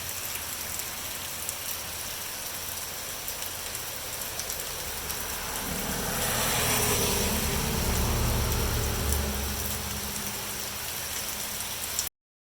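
Steady rain falling, heard as an even hiss. About halfway through, a low rumble swells up and fades again a few seconds later.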